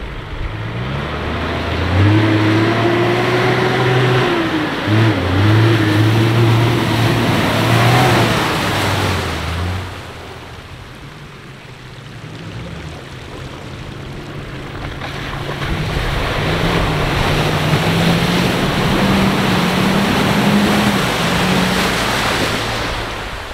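Mitsubishi Pajero's engine under way, its revs holding and stepping through the gears, over steady road and wind noise. It eases off about ten seconds in, then revs up again with a steadily rising pitch.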